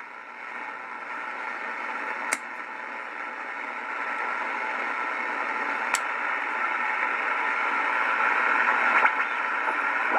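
Band noise and static hissing from the loudspeaker of a Realistic SX-190 shortwave receiver between stations, rising steadily in level, with a few sharp clicks.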